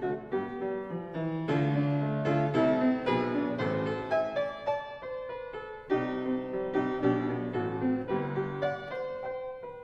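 Instrumental piano music: a run of notes struck one after another over lower bass notes.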